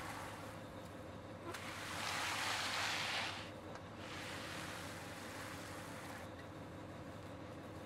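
Bull float on a long pole sliding over fresh wet concrete while the slab is floated: a swishing scrape that swells loudest about two seconds in and comes again, fainter, around four to six seconds. A steady low hum runs under it.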